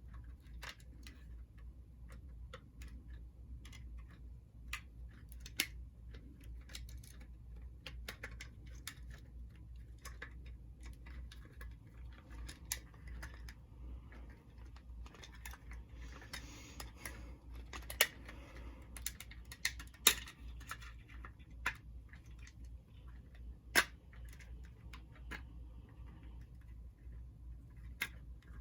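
Scattered small clicks and taps of a vintage Penn Line F7 model locomotive's shell being handled and fitted back onto its chassis, with a few sharper snaps later on. A steady low hum runs underneath.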